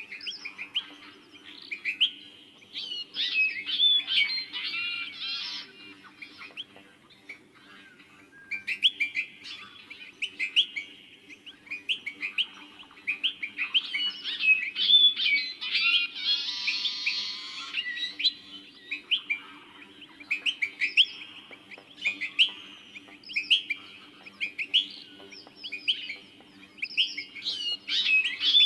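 Several small birds chirping and twittering in quick, overlapping bursts of short high notes, with a harsher call about halfway through and a faint steady hum underneath.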